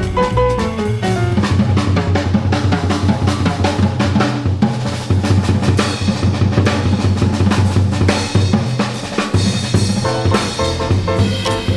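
Jazz piano trio playing, heard from a cassette recording of an FM broadcast: the drum kit takes a busy passage of snare, bass drum and cymbal strokes, with piano notes at the start and the piano coming back in near the end.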